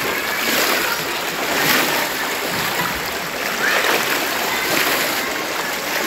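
Floodwater rushing down a street and splashing around people wading through it, with faint voices now and then.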